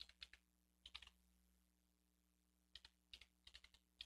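Faint keystrokes on a computer keyboard: a few taps in the first second, then a quicker run of about eight taps from a little under three seconds in.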